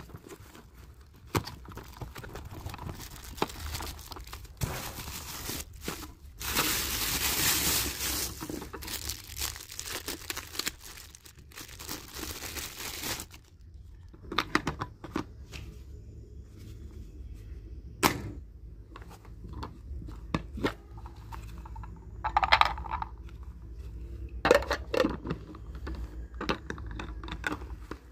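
A cardboard parcel being torn open: tape and cardboard ripping and packaging crumpling, loudest about seven seconds in. From about halfway, sparser sharp plastic clicks and knocks as the parts of a manual push chopper are handled and fitted together.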